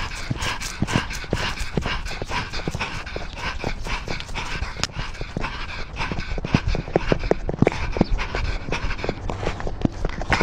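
Rapid, heavy panting close to the microphone, about four breaths a second, with a steady low rumble underneath.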